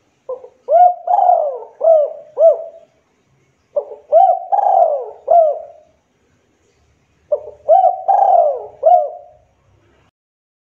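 Spotted dove cooing: three phrases of four or five rising-and-falling coos each, with short gaps between the phrases.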